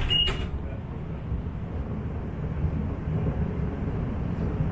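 Steady low rumble inside an Inekon Trio Type 121 streetcar, getting slightly louder after about three seconds. A short high beep, the last of a repeating chime, sounds right at the start.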